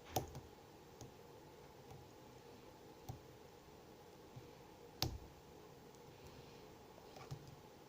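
Scattered faint metallic clicks of a lock pick working the wafers of an American Lock Series L50 double-sided wafer padlock, with sharper clicks just after the start and about five seconds in.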